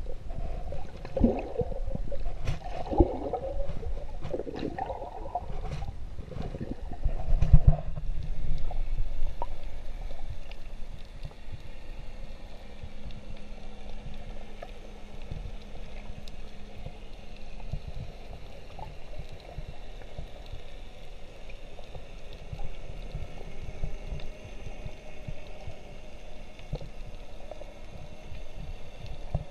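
Underwater sound picked up by a GoPro camera while snorkeling. For the first eight seconds or so there is louder, irregular water sloshing and gurgling with sharp splashes and clicks. It then settles into a quieter, steady low underwater rumble with scattered faint ticks and a faint low hum for a few seconds in the middle.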